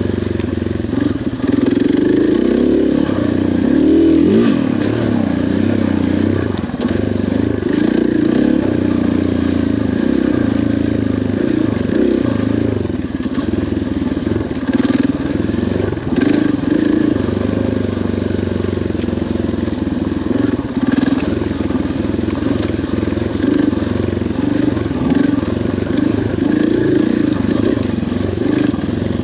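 KTM 500 XCF-W dirt bike's single-cylinder four-stroke engine running on a trail ride, revs rising and falling with the throttle. A few sharp clicks and rattles from the trail are mixed in.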